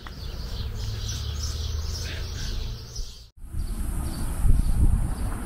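Outdoor ambience with birds chirping over a low rumble. After a short break about three seconds in, a steady high-pitched insect drone takes over.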